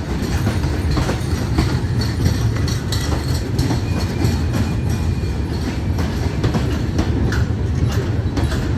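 A moving train: a steady low rumble with scattered sharp clicks.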